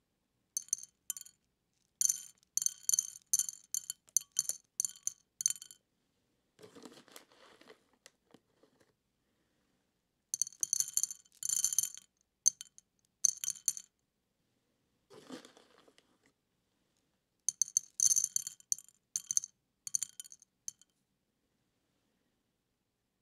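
Dried beans rattling and clinking against a shallow ceramic dish, in several bursts of quick clicks with a bright ringing edge. Twice, between the bursts, there is a softer, duller rustle.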